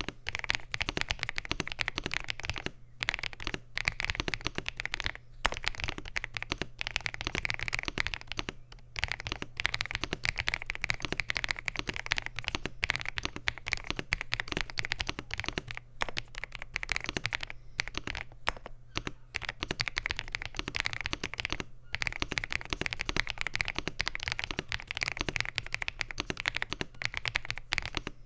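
Steady fast typing on an Ajazz AK980 mechanical keyboard with Huano Gift V2 switches, an FR4 plate and double-shot PBT keycaps: a dense run of keystroke clacks broken by a few short pauses.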